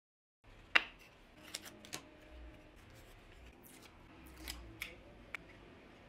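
Small hand work at a wooden workbench: one sharp click about three-quarters of a second in, then a scattered run of lighter clicks and snips.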